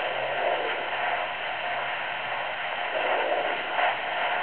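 Handheld fetal doppler's speaker giving a steady static hiss as the probe is moved over the lower abdomen, searching for the fetal heartbeat.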